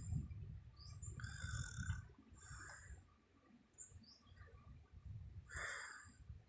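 A sleeping woman snoring faintly: two slow breaths about four seconds apart, each a low rumble ending in a hissy rasp. Short high chirps sound over it now and then.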